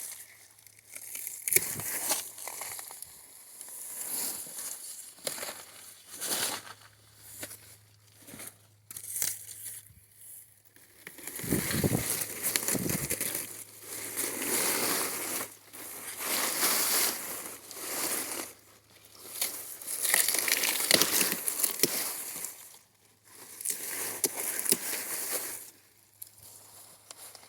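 Dry pumpkin vines and leaves rustling and crackling in irregular bursts as pumpkins are picked, with a couple of dull thuds about twelve seconds in.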